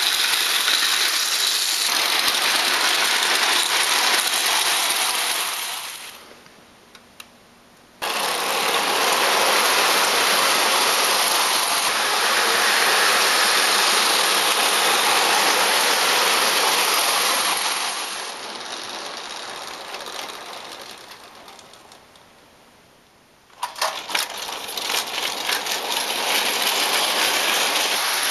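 Vintage clockwork tinplate O-gauge locomotive running with its train on tinplate track: the spring-driven motor whirs and the wheels and coaches rattle and clatter over the rail. The noise is loud while the train is close, fades out twice and comes back abruptly, the second time with a burst of sharp clicks.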